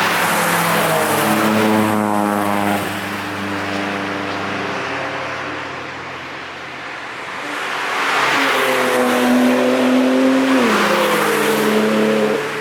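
Cars driving past at speed one after another, engines running hard. The first goes by in the opening seconds with its engine note falling away; a second approaches, passes with a sharp drop in engine pitch, and fades near the end.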